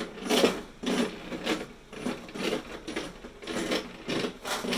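Small meltybrain combat robot driving in tank mode across a plywood arena floor: its drive motors pulse in short bursts while the wheels and body scuff on the wood. The bursts come in a quick, uneven run, two or three a second.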